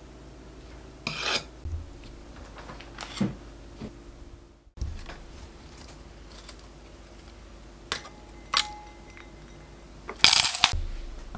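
A metal offset spatula scraping and knocking a few times on a silicone mould of mousse. Then two sharp clinks against a glass bowl of ice water, each with a brief ringing tone, and a louder clattering burst near the end as sheet gelatin goes into the ice water.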